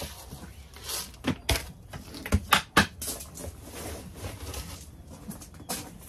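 Grain feed being scooped from a plastic storage bin into a plastic bucket: rustling and pouring of seed with several sharp knocks of plastic on plastic, the loudest a little past halfway.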